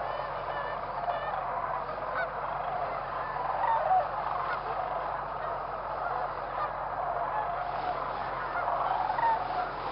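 Large flock of Canada geese honking, many calls overlapping in a steady chorus, with a few louder honks standing out about four seconds in.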